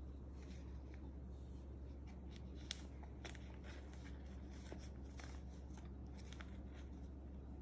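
Faint rustling and scattered small clicks as a baby monkey in a disposable diaper is handled on a towel and given a plastic milk bottle, over a steady low hum.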